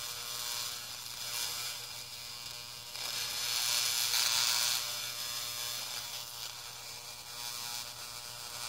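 High-voltage arc discharge from a 15 kV transformer through dry concrete powder: a steady electrical buzz with a hissing crackle that grows louder for a couple of seconds about three seconds in.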